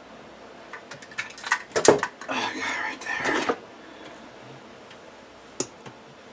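Clicks and clatter of a small metal hand tool and wires being handled. There is a run of sharp clicks and short rattles through the first half and a single click near the end.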